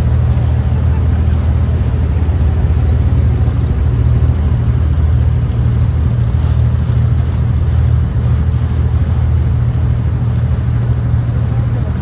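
Diesel engine of an abra, a wooden water taxi, running steadily with a low drone.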